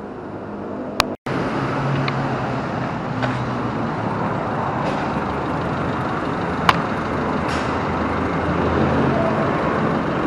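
A vehicle engine runs steadily, with a few faint clicks. The sound cuts out briefly about a second in.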